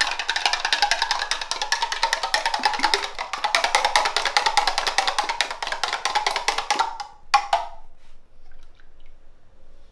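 Metal spoon rapidly beating eggs in a glass measuring jug, a fast even clinking against the glass. It stops about seven seconds in after a couple of knocks, and the egg is then poured out quietly.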